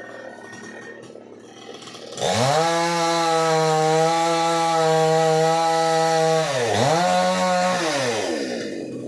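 Chainsaw revved up to full throttle about two seconds in and held at a steady high pitch. Near the end it drops, revs briefly again, then falls back toward idle.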